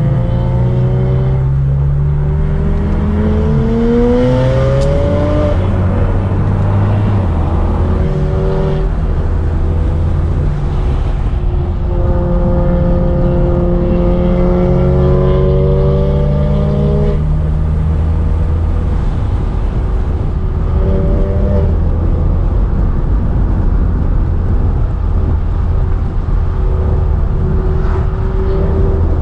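Car engine being driven, its pitch climbing during runs of acceleration and dropping back several times over, with steady road noise underneath.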